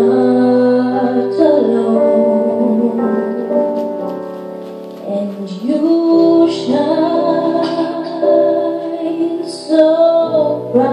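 A girl singing a slow ballad into a microphone, holding long notes and sliding up between them, over instrumental accompaniment with piano.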